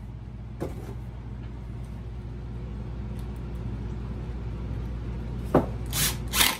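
Power drill driving a screw into wood in a few short bursts of the trigger near the end, after a single knock about half a second in, over a steady low hum.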